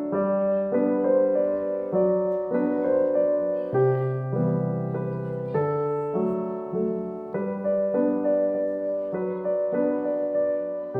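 Background piano music: a gentle solo piano playing chords and notes at an even, unhurried pace.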